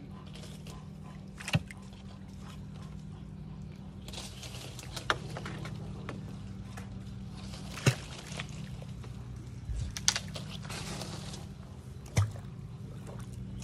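Pond water sloshing and splashing, with about five sharp knocks spread through, over a steady low hum.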